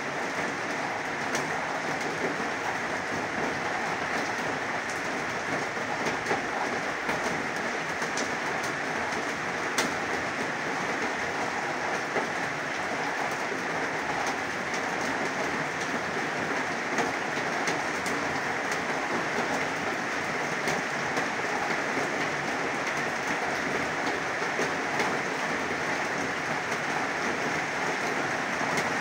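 Heavy rain falling in a steady downpour, an even hiss with scattered sharper strikes of individual drops.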